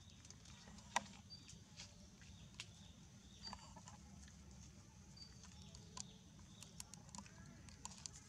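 Near-silent outdoor ambience: a steady low hum with scattered faint clicks and rustles, one sharp click about a second in, and a few very short high chirps.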